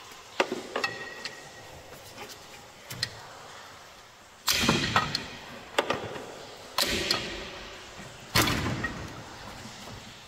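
Hand tools working on the thermostat housing bolts of a car engine: a few light metal clicks, then three louder clattering bursts about two seconds apart, each fading over about a second.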